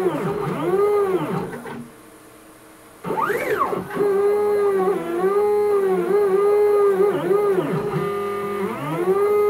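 Stepper motors of a homemade CNC router driving the axes through a run of moves: a pitched whine that rises and falls with each speed-up and slow-down. It stops briefly about two seconds in, then swoops quickly up and down. The machine is running smoothly, with the stepper noise carried and amplified by the rigid aluminium extrusion frame.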